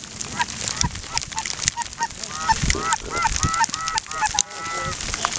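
Geese honking and clucking: a run of short, rising-and-falling calls that grow louder about halfway through, ending in one longer drawn-out call.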